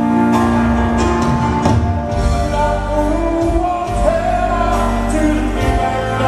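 Live rock ballad played on grand piano with band, a male lead voice singing long held notes. A deep bass layer comes in about two seconds in. The sound is heard through a large arena's PA.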